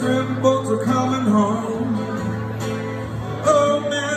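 Acoustic guitar and electric guitar playing a song together, with a melody line that bends and slides in pitch over the steady chords.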